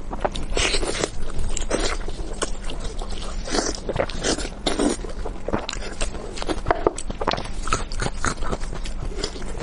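Close-miked biting and chewing of pork belly: an irregular run of short smacks and crunches.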